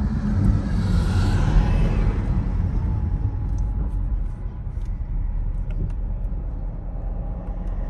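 Cabin rumble of a Chevrolet Camaro with a 10-speed automatic slowing to a near stop: engine and road rumble that eases off about halfway through as the car loses speed.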